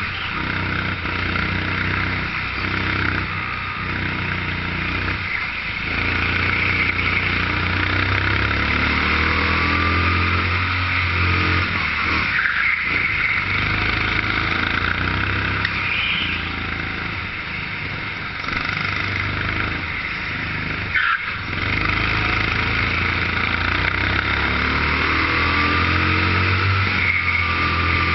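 Engine of a 13 hp rental kart running hard from on board. It drops off briefly a few times as the driver lifts for corners, then picks back up.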